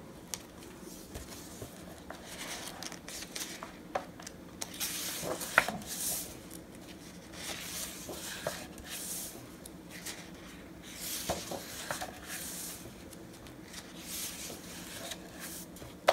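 Pages of a hardcover picture book being turned by hand: several soft paper swishes and rustles, with a few light taps, the sharpest about a third of the way in.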